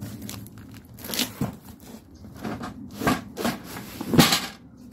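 Cardboard box and plastic packing wrap rustling and scraping as a canvas carry bag is slid out of the box: irregular crinkles and scrapes, the loudest about four seconds in.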